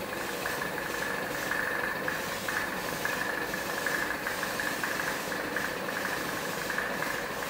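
Compressed-air paint spray gun in use, a steady hiss with a steady high tone in it, over a mechanical hum.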